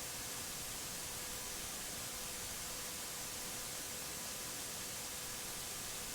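Steady low hiss of dead air on a broadcast recording, with a faint steady tone underneath.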